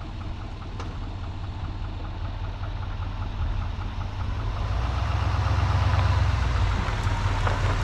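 A vehicle engine running steadily with a low drone and a fast, even ticking. It gets louder a little past the middle and eases off slightly near the end.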